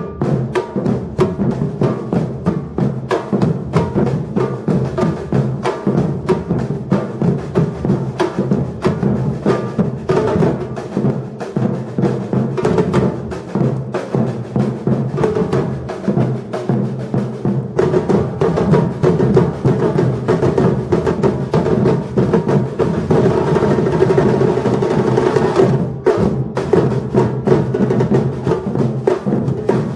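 Batucada drum ensemble playing: dense, driving percussion with deep bass drums under sharper strokes, growing fuller and louder in the last third, with a brief break a few seconds before the end.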